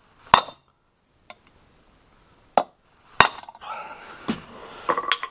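Hammer striking metal: about half a dozen separate, irregularly spaced blows, peening nail rivets into a motorcycle kickstart ratchet, with some metallic ringing between the later blows.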